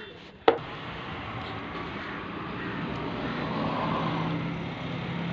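A sharp click about half a second in, then a steady mechanical running noise with a low hum, like a motor or engine, that grows slightly louder.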